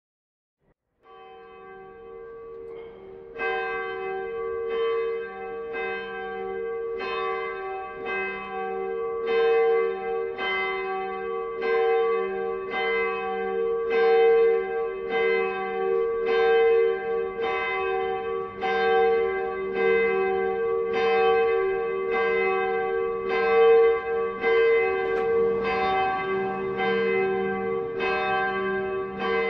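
Church bells ringing a peal: several bells struck in a steady, overlapping pattern, about one and a half strokes a second, each stroke ringing on. The ringing comes in about a second in and grows fuller a few seconds later.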